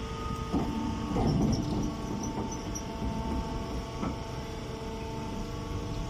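Chopped-hay bagging baler's electric motor and hydraulic pump running with a steady hum, with a few knocks and rustles in the first two seconds and again about four seconds in.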